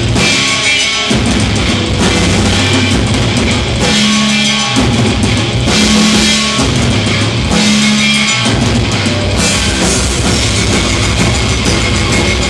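Live heavy rock band playing loud: drum kit and electric guitars, with the low end cutting out briefly a few times in the riff.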